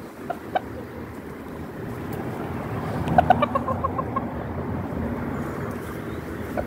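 Chicken clucking: two short clucks near the start, then a louder run of quick clucks about three seconds in, tailing off after a second or so, over a steady low background rumble.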